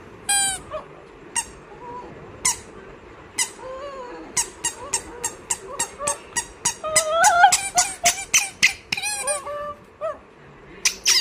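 A dog making short, high squeaky whines, spaced out at first and then coming several a second, with a few longer wavering whines partway through.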